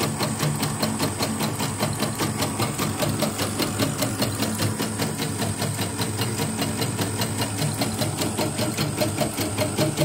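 CNY E900 portable embroidery machine stitching a test design, its needle mechanism and hoop drive running in a fast, even rhythm. The machine is making stray mechanical noises that the technician has yet to trace after the repair.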